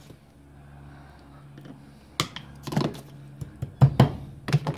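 Hammer tapping a pin into a disc brake caliper, with metal clicks and knocks. The knocks start about two seconds in and are loudest near the end, over a steady low hum.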